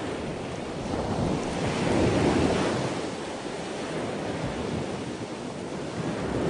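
Sea surf washing against the shore under a steady wind, with wind buffeting the microphone; the rush swells and eases, loudest about two seconds in.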